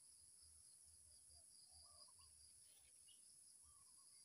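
Faint wild-forest ambience: a steady high-pitched insect chorus, with a few soft bird chirps about two seconds in and again near the end.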